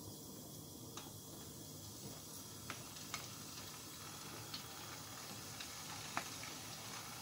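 Raw fish cutlets going into a pan of hot oil: faint sizzling that picks up a few seconds in, with a few scattered small ticks and pops of spitting oil.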